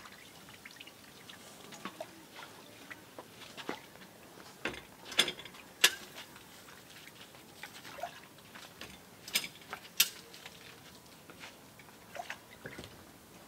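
Scattered sharp clinks and knocks against a steel pot, with small splashes of water, as pieces of meat are handled in it by hand; the loudest clinks come about five and six seconds in and twice more around nine to ten seconds.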